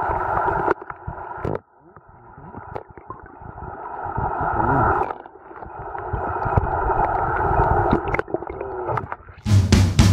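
Muffled underwater sound from a camera held below the surface: water rushing and bubbling with scattered crackles, swelling and fading, with a brief drop-out a little after a second in. Rock music with drums cuts back in near the end.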